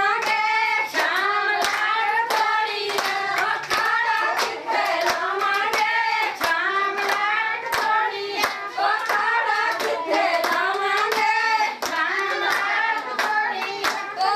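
A group of women singing a folk song together, with steady hand clapping keeping time, about three claps every two seconds.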